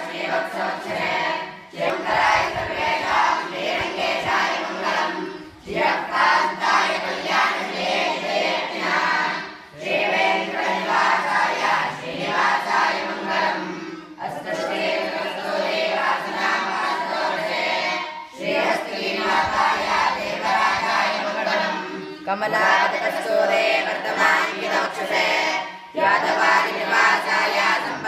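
A group of boys singing a devotional hymn in unison, in phrases of about four seconds with short pauses for breath between them.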